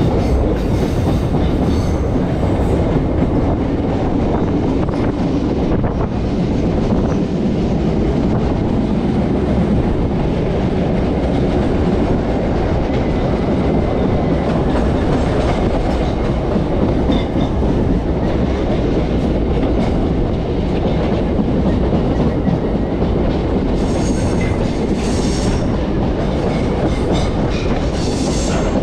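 Chennai MRTS electric suburban train running along the track: a steady rumble with wheel clatter, and a few faint high squeaks near the end.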